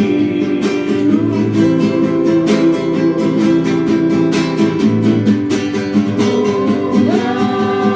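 An Indonesian worship song: a singer holds the last word of a line, 'hidupku', over strummed acoustic guitar, which then plays on alone between lines.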